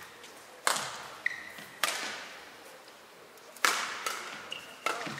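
Badminton rackets striking a shuttlecock in a rally: four sharp hits, one to two seconds apart, with a couple of short squeaks from players' shoes on the court mat.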